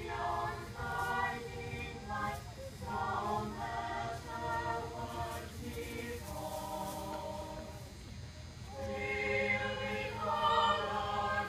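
Mixed choir singing unaccompanied: held chords that change every second or so and swell louder about nine seconds in.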